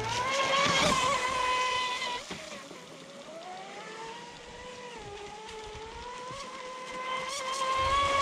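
Custom Pro Boat Sonicwake 36 RC speedboat running flat out, its Leopard 4074 1800kv brushless motor giving a high whine that rises and falls in pitch with throttle and turns. The whine is louder in the first couple of seconds and again near the end.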